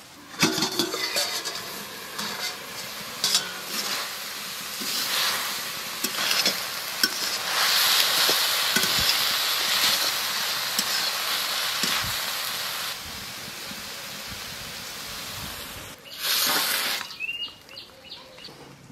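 Chopped water spinach (kalmi shak) sizzling as it is stir-fried in a metal kadai, with a metal spatula repeatedly scraping and clicking against the pan. Near the end comes a brief, louder burst of scraping.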